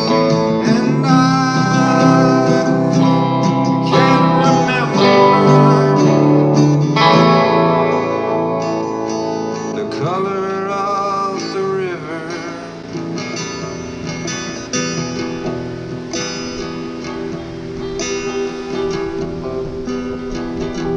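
Live acoustic guitar strummed and picked, with a voice singing over it in places. The playing softens about eight seconds in.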